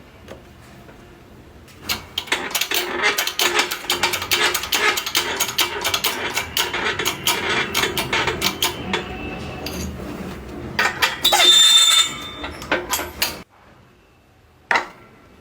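Press pressing a new small bearing onto an alternator rotor shaft: a dense run of rapid metallic clicking and ratcheting, then a louder harsh grating burst about eleven seconds in, after which it goes quiet but for one click near the end.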